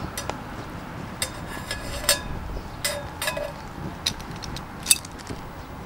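Stainless steel billy can and its wire bail clinking against the wood gas stove's metal pot support as the can is handled and set tilted over the fire: several sharp metallic clinks, some ringing briefly, the loudest near the end.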